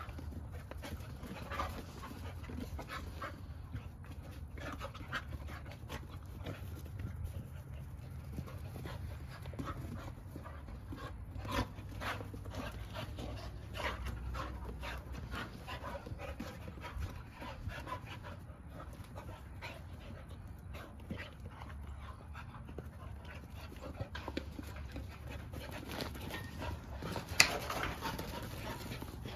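Two dogs play-fighting, panting hard, with short sharp noises scattered throughout and one louder one near the end.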